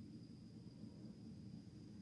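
Near silence: room tone with a faint steady low hum and a thin, steady high-pitched tone.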